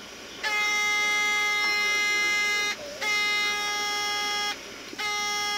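CB radio speaker sounding a steady, unchanging tone in three long stretches with short breaks between them: a stray signal on the radio that its owner can't account for.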